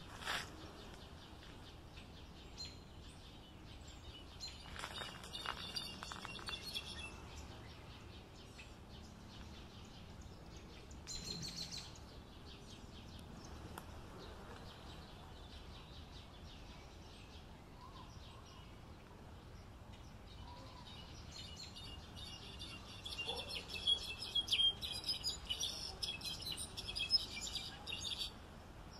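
European goldfinch singing a rapid, tinkling twitter in bursts: about five seconds in, briefly around eleven seconds, and a longer six-second run near the end, over a steady outdoor background hiss.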